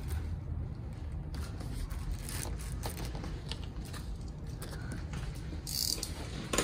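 Cardboard box being opened by hand: flaps scraping and taped cardboard crinkling in scattered short rustles, with a louder rustle near the end.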